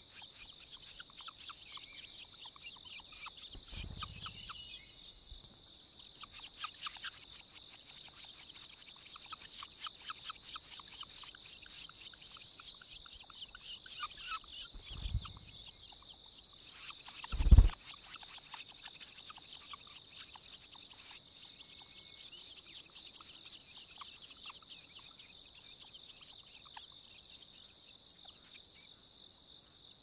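Long-tailed shrike nestlings begging at the nest with rapid, high chirps, densest in the first half, over a steady high-pitched buzzing background. A few low thumps break in, the loudest about halfway through.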